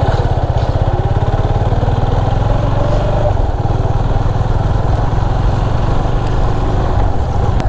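Motorcycle engine running steadily under way, its firing pulses dense and even.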